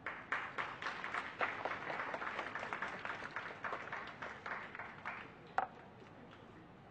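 Audience applauding, starting at once and dying away after about five seconds, with one last sharp clap shortly after.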